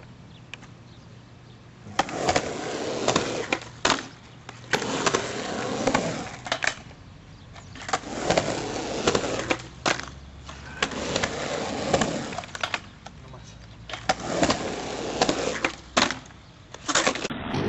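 Skateboard wheels rolling back and forth across a concrete mini ramp, swelling and fading with each pass about every two seconds. Sharp clacks of the board strike in between.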